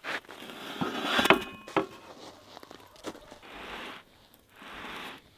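Eating crunchy food: a few sharp clicks and a short metallic ring in the first two seconds, then soft crunching chews about once a second.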